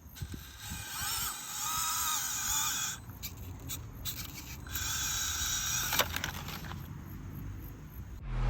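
Electric motor and gearbox of a 1/12-scale RC rock crawler whining in two spells of throttle, the pitch wavering, with a pause and a few clicks in between over low rumbling noise.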